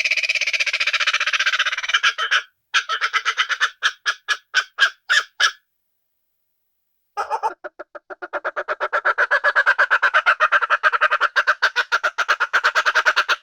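Bird screeches from a creepy horror sound effect: one continuous screech for about two seconds, then a run of short calls that grow sparser and stop. After about a second and a half of silence comes a long run of fast chattering calls, several a second, that grows louder and then fades near the end.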